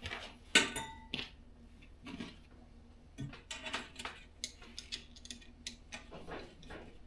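Scattered light metallic clicks and clinks as the heater's exhaust muffler and pipe are handled and fitted together, with one sharper knock about half a second in.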